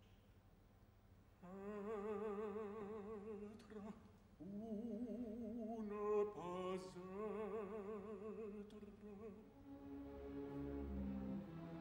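Operatic baritone singing in French with a wide, even vibrato. He starts about a second and a half in and sings several slow phrases separated by short breaths.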